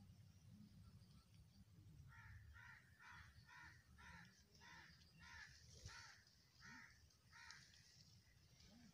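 A crow cawing faintly in a quick series of about ten caws, roughly two a second, starting about two seconds in.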